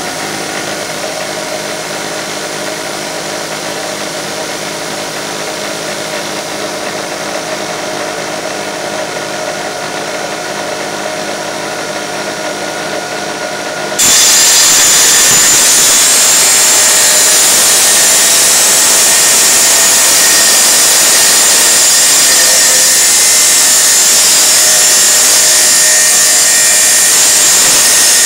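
Electric tile saw running with a steady hum, then about halfway through it turns suddenly much louder and harsher as the blade cuts into the tile, grinding steadily through the cut.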